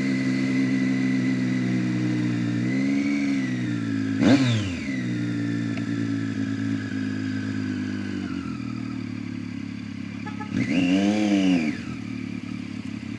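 Motorcycle engine idling steadily, blipped three times: a small blip about three seconds in, a sharp quick rev just after, and a longer rev held for about a second near the end before it settles back to idle.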